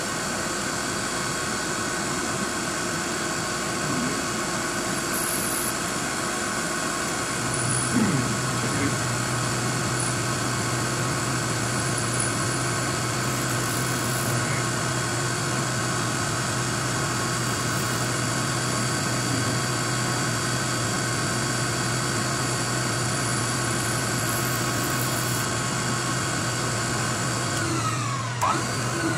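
Precision Matthews PM935TV milling machine running steadily, its spindle driving a tiny 1/16-inch end mill that cuts a pocket in a steel Remington 700 receiver: a steady whine made of several held tones. A low hum joins about seven seconds in, and near the end the pitch drops as the spindle slows.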